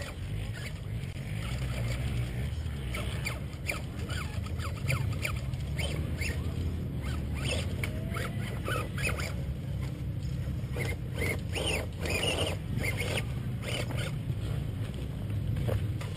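Electric RC rock-crawler truck working over rocks: short, irregular whines and clicks from its motor and drivetrain, over a steady low rumble.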